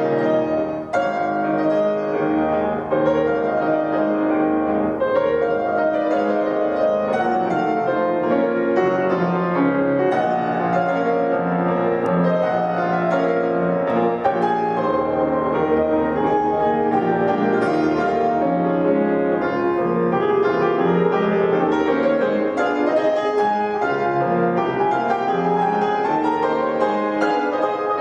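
Grand piano played solo: a continuous, loud classical passage with many notes sounding together.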